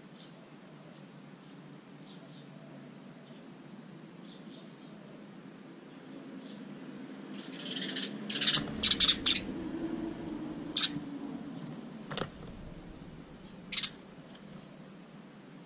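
House sparrow chirping: a few faint scattered chirps at first, then a quick run of loud chirps about eight seconds in, followed by single chirps a couple of seconds apart. A sharp click sounds about twelve seconds in.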